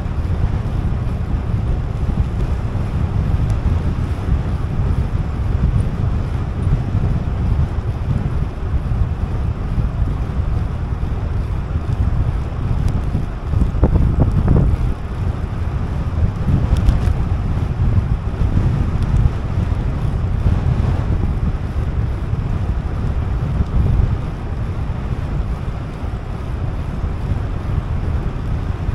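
Wind buffeting the microphone of a camera riding along on a moving bicycle: a steady low rumble with no speech, swelling briefly about halfway through.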